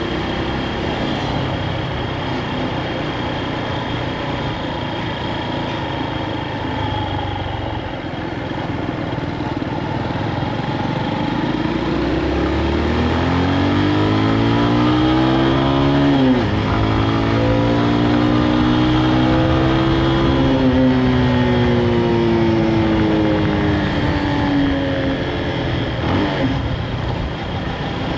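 Honda CB223S air-cooled single-cylinder four-stroke engine on the move. It runs evenly, then revs climb about halfway through. The pitch drops sharply at an upshift and climbs again, then slowly falls as the throttle is eased off.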